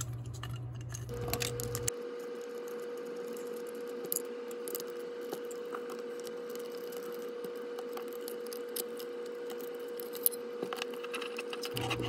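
Small clicks and taps of a screwdriver and fingers handling a die-cast HO scale model locomotive as screws are backed out of its truck, over a faint steady hum.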